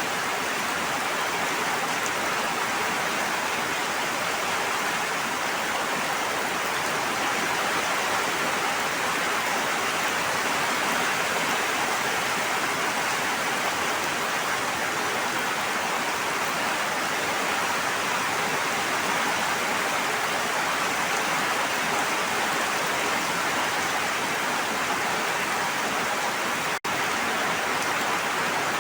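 Steady, even hiss of continuous water, with no distinct drops, splashes or waves standing out. It cuts out for an instant about 27 seconds in.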